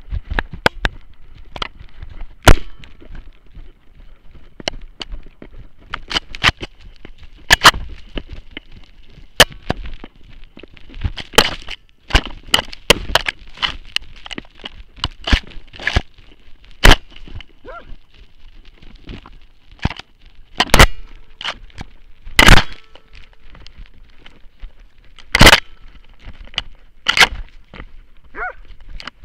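Irregular sharp knocks, cracks and scrapes on a dog-worn harness camera, its housing bumping and rubbing as the hunting dog moves through snow, busiest in the middle and with a few hard knocks later on.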